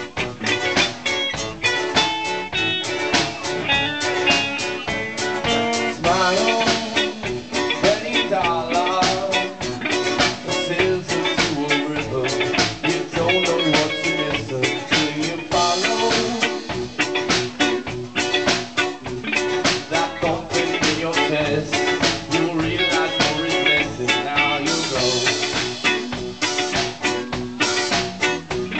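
Live band playing on drum kit and guitars, with a woman singing into a microphone.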